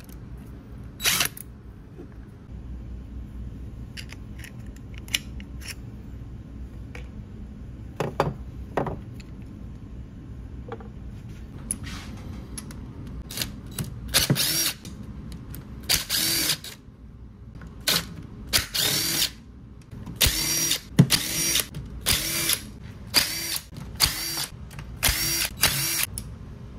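DeWalt cordless drill with a socket on it, backing out engine case bolts: a few light clicks at first, then from about halfway a string of short bursts, the motor spinning up and stopping each time.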